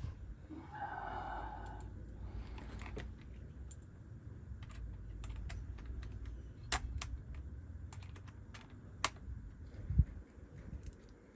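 Scattered light clicks and taps of hardware and tools being handled during the train horn kit install, over a low rumble, with a few sharper clicks in the second half and a knock near the end.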